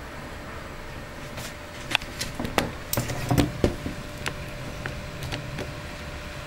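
Steady wind noise as a thunderstorm's gust front blows through the trees, with a cluster of sharp clicks and knocks about two to four seconds in.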